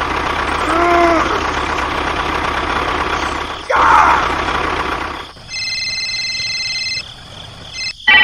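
A small motor runs steadily, swells briefly about four seconds in, then stops about five seconds in. A steady electronic tone follows for about a second and a half.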